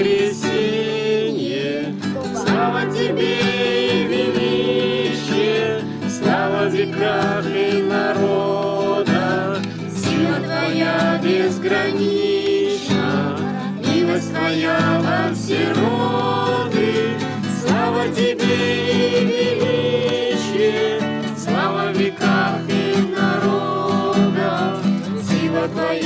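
Group singing, a man's voice with girls' and a woman's voices, to an acoustic guitar he is strumming.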